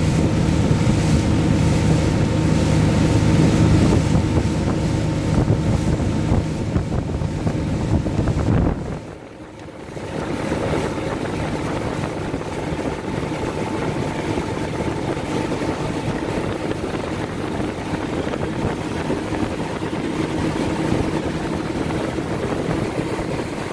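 Motorboat engine running steadily under way while towing a water-skier, mixed with wind on the microphone and rushing wake water. The sound drops out for about a second near the middle, then comes back with the engine less prominent and the wind and water noise more even.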